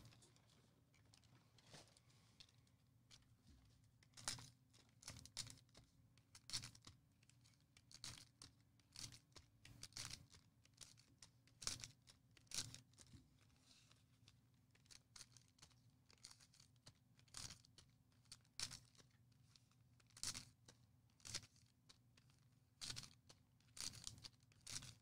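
Faint, repeated tearing and crinkling of trading-card pack wrappers being ripped open and handled. There is a short rip or rustle about every second, irregular.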